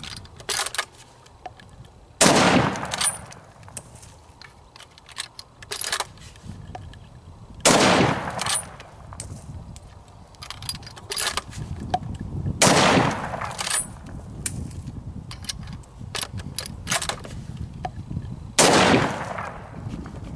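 Four loud hunting-rifle shots, roughly five seconds apart, each with a short echoing tail. Fainter clicks and knocks fall between the shots.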